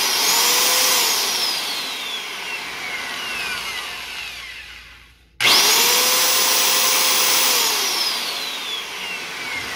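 Skil 15-amp 7-1/4-inch corded circular saw with a brushed motor, spinning with no load: it runs at full speed, then is released and winds down with a falling whine. About five and a half seconds in it is triggered again, runs steadily for about two seconds and then coasts down once more. Very loud.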